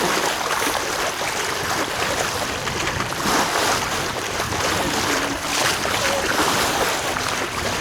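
Water rushing and splashing along the hull of a sailing smack under way, with wind on the microphone.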